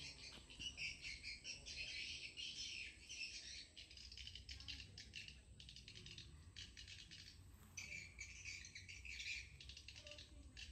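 Faint chirping of small birds: a busy, irregular run of short calls with brief pauses, over a low rumble.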